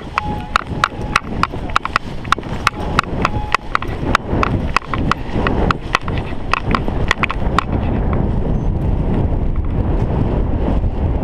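A paraglider pilot's running footsteps through grass, with a sharp click at each stride about three to four times a second, during a no-wind launch. About eight seconds in the steps stop as he lifts off, and steady wind rush on the microphone takes over.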